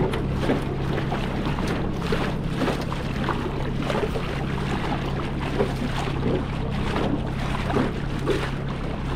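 Small fishing boat's outboard motor running steadily with a constant low hum, while choppy lake water splashes irregularly against the hull.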